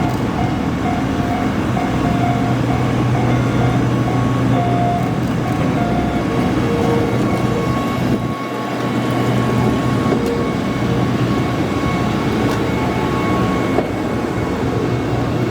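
Level-crossing alarm ringing in a steady, repeating ding as a train hauling new subway cars goes over the crossing. Under it runs a low, steady engine hum, with a short dip in the rumble about halfway through.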